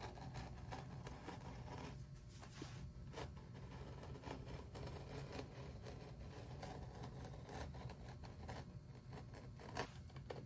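Faint scraping of hand tools on leather with a few light taps, over a low steady hum.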